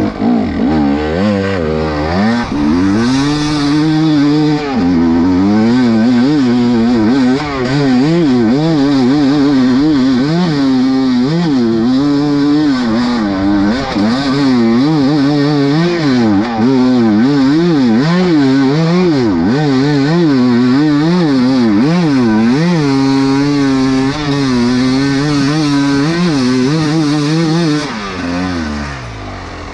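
2023 KTM EXC 300 two-stroke enduro engine under way, revving up and down again and again as the throttle is worked over rough ground. Near the end the revs drop and it runs lower and quieter.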